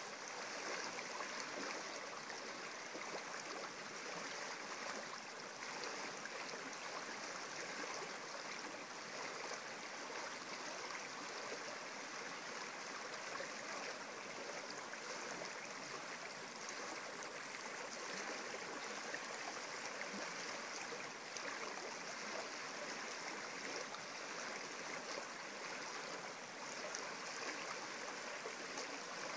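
Shallow stream running over a stony, pebbly bed, with water rushing through a small riffle; a steady, even sound that holds throughout.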